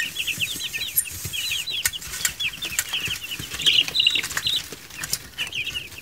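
A brood of week-old meat-breed chicks peeping continuously: many short, high, downward-sliding cheeps, one after another, with scattered light clicks and rustles in the pine-shaving bedding.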